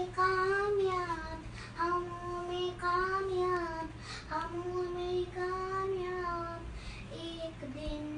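A young girl singing without accompaniment: long held notes in phrases of about two seconds, with short breaks between them. A steady low hum runs underneath.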